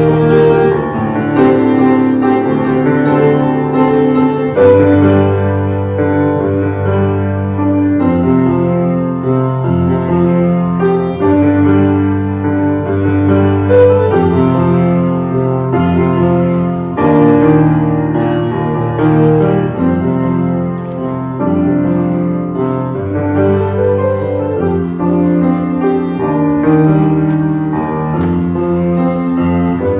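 Grand piano played solo: a slow piece of held chords that change about every second, with a low bass line joining about five seconds in.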